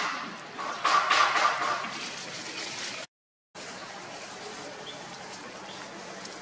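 A puppy nosing through leafy undergrowth, rustling the plants in quick noisy bursts, several a second, for the first two seconds. After a brief dropout there is only a steady faint hiss.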